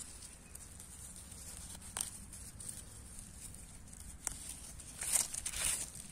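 Wild greens being picked and handled: a couple of sharp snaps, then a short burst of rustling and crinkling near the end.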